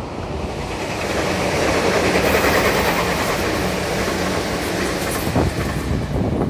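Meitetsu red electric train, a rapid limited express, passing through at speed. Its rumble and wheel clatter build up, are loudest about two to three seconds in, then ease, with a few sharp wheel clacks near the end.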